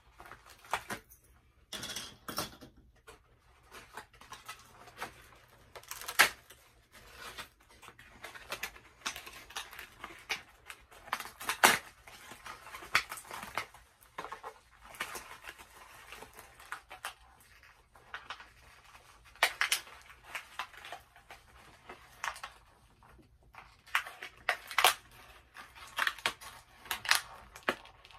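Doll packaging being handled and pulled apart by hand: irregular clicks, crackles and rustles of cardboard and plastic.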